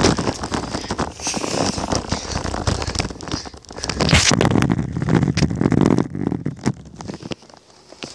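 Rustling and scraping handling noise from a hand-held tablet, mixed with footsteps on asphalt, busy for about six seconds and then quieter.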